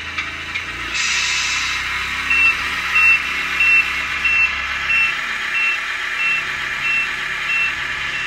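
Tamiya MFC-01 sound unit in an RC semi-truck playing its reversing beeper: short high beeps, about three every two seconds, starting a couple of seconds in, over a steady hiss of the unit's recorded truck sound. A short hiss about a second in.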